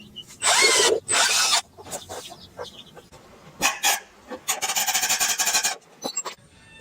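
Rasping, scraping strokes: two loud ones about half a second and a second in, scattered sharp clicks, then a longer grating rasp with a fast even rhythm near the end.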